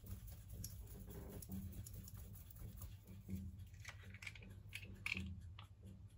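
Faint small clicks and rustles of hands handling a jar and kitchen items, over a low steady hum.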